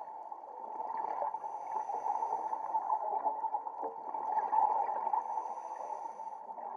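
Underwater ambience picked up by a diving camera: a steady, muffled watery rushing with faint bubbling, rising and falling a little in level.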